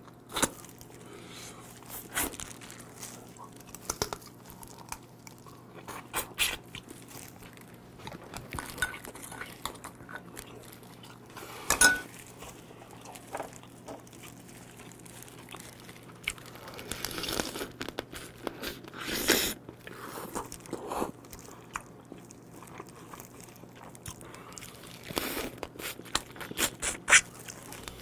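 Crunching and chewing of raw soy-marinated blue crab (ganjang-gejang) as the shells and legs are bitten and cracked. The cracks come irregularly, with louder bursts about twelve seconds in, again a few seconds later, and near the end.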